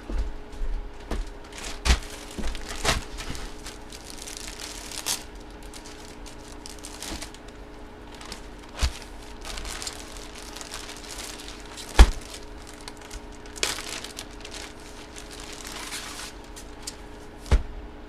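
Plastic card packaging crinkling and being torn open and handled, with a few sharp knocks of things set down on the table, the loudest about two-thirds of the way through.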